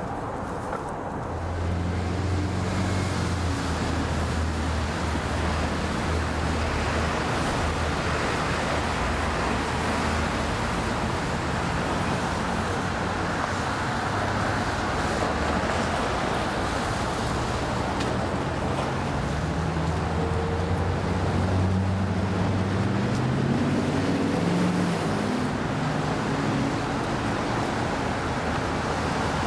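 Street traffic noise: a steady rush with the low hum of a running vehicle engine, and an engine rising in pitch about twenty seconds in as a vehicle speeds up.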